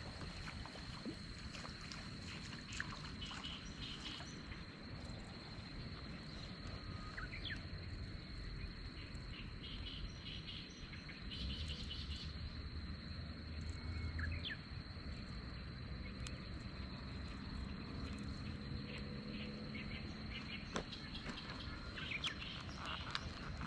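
Outdoor ambience: a steady high insect trill runs throughout, with a few short bird chirps and a low rumble of wind or handling noise beneath.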